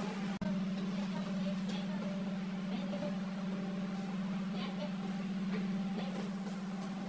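A steady low electrical or fan hum, which drops out for an instant about half a second in. A few faint light metal clicks come over it as a main bearing cap and its bolts are handled on the crankshaft of a six-cylinder diesel block.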